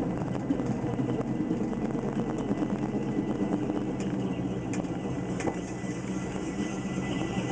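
1969 Plymouth Road Runner's 440 V8 (bored .040 over, Magnum cam) running steadily at low speed, heard from inside the cabin. A few faint clicks come in the second half.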